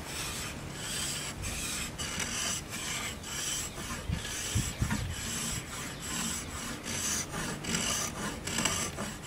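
Hand tool scraping and rasping wood off a crepe myrtle bow limb in quick, even strokes, a little under three a second. It is taking down a stiff hump in the limb to even the bend during tillering.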